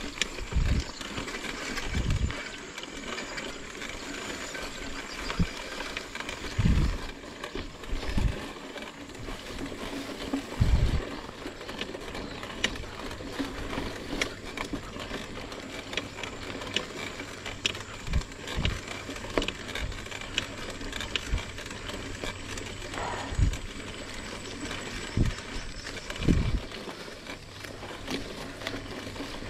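Mountain bike rolling along a rough dirt and grass singletrack: a steady noise of tyres and riding, with scattered low thumps and rattling clicks as the bike goes over bumps.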